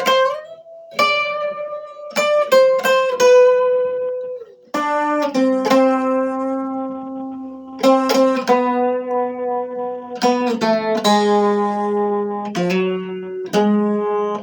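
Instrumental music: plucked, guitar-like strings with a slow melody of long held notes.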